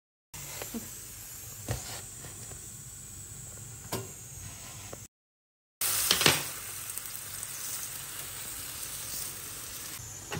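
A stuffed aloo paratha frying on a hot pan, sizzling steadily, with a few sharp clicks from a spatula or spoon. The sizzle breaks off for a moment near the middle and comes back louder.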